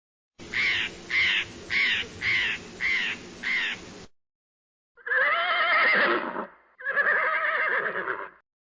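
Animal calls: six short, evenly spaced calls about half a second apart, then, after a short pause, two long calls that waver in pitch.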